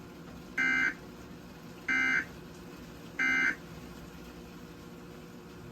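Emergency Alert System end-of-message tones: three short bursts of SAME digital data, each a harsh buzzy chirp about a third of a second long, spaced about 1.3 seconds apart. They signal that the tornado warning broadcast is over.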